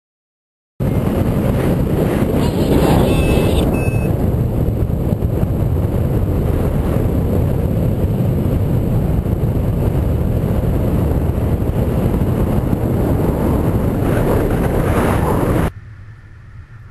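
Wind rushing and buffeting over the microphone of a camera on a paraglider in flight: a steady, dense low rush. It cuts in about a second in and drops away much quieter near the end.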